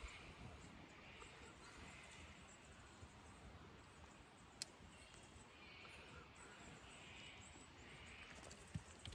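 Near silence: faint outdoor ambience with a single sharp click about halfway through.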